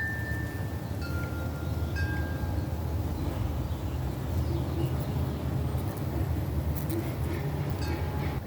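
Wind chimes ringing: a few clear single tones at different pitches, each held about a second, mostly in the first few seconds, over a steady low rumble.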